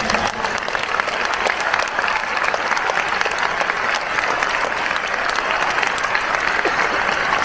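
A large stadium crowd applauding steadily: a dense, even patter of many hands clapping.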